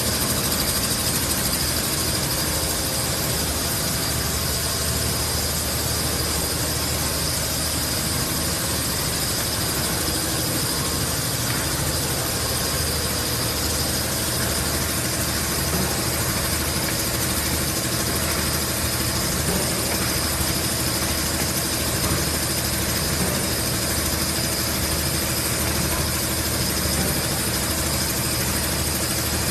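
Automatic inline piston filling and screw capping machine running on a lubricant-oil bottling line: a steady mechanical drone with a constant high whine and a low hum.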